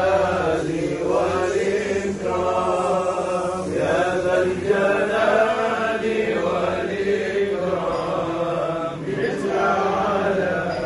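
Men's voices chanting a nasheed without instruments, in long flowing phrases that rise and fall in pitch.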